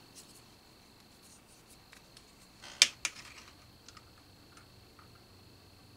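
Light clicks and taps of small parts being handled at a reloading bench, with one sharp click a little under three seconds in and a smaller one just after.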